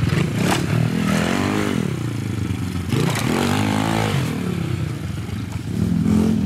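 Small single-cylinder pit bike engine revving up and falling back several times as it is ridden over dirt jumps, with a sharp clatter about half a second in.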